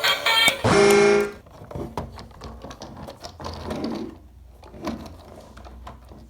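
Electronic music stops just after the start, then a short, loud pitched tone sounds about a second in. After that come scattered light clicks and knocks, typical of plastic toy parts being handled and fitted together.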